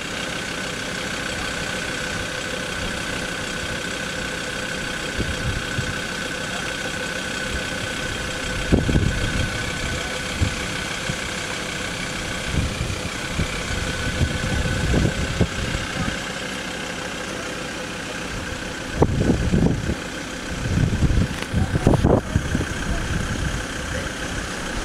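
A vehicle engine idling steadily. Several short low rumbles and bumps sit on top of it, heaviest in a cluster a little past three-quarters of the way through.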